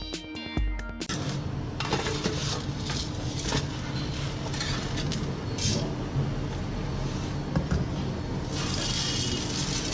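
Background music for about the first second, then kitchen utensils clinking and scraping against a pan or bowl, with scattered sharp clicks over a steady noisy bed.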